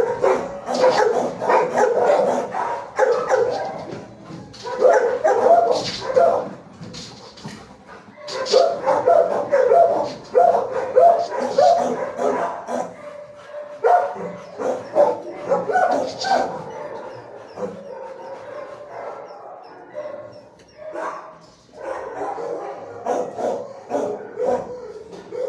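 Shelter dogs barking in repeated bursts from the kennels, several at a time, with short lulls between volleys and a quieter spell past the middle.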